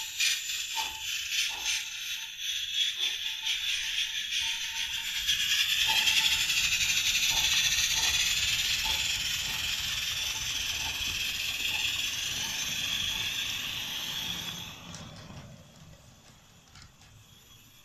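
Märklin BR 89 live-steam model locomotive running with its gas burner and steam hissing steadily, with light irregular ticks under the hiss. The hiss swells in the middle and falls away about fifteen seconds in.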